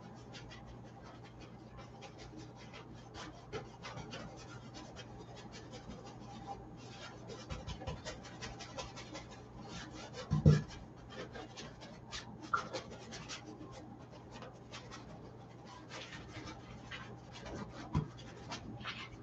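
Oil paintbrush scratching and dabbing against a stretched canvas in short, irregular strokes over a steady low hum, with a dull thump about ten seconds in and a smaller one near the end.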